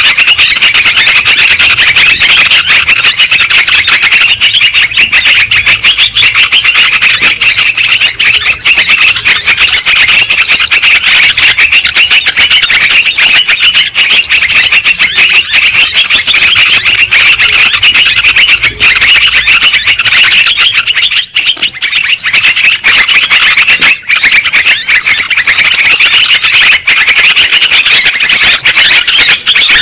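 Yellow-vented bulbuls (trucuk) chattering without a break: a loud, dense lure recording of many overlapping calls, made to draw wild bulbuls in for trapping.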